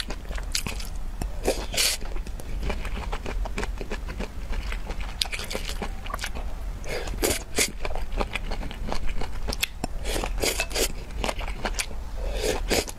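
A person chewing and biting food close to the microphone, with crunches and wet mouth sounds at irregular intervals. The food is vegetables and noodle strips taken from a spicy red broth.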